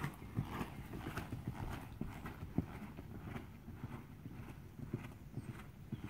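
Off-the-track Thoroughbred trotting under a rider on sand footing: a steady rhythm of muffled hoofbeats.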